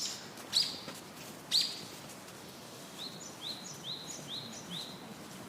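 Small bird chirping: two louder, sharp calls in the first two seconds, then a run of five short rising chirps, about two a second, over a faint background hiss.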